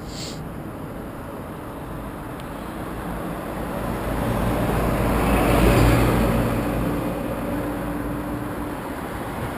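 A coach bus driving past. Its engine and tyre noise build to a peak about six seconds in and then fade, over steady street traffic noise.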